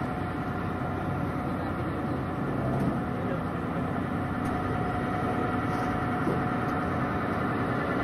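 Boat engine running steadily, a constant drone with no change in speed.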